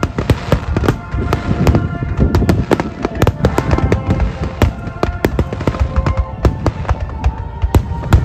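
A rapid barrage of aerial firework shells bursting, several sharp bangs and crackles a second, over a continuous low rumble.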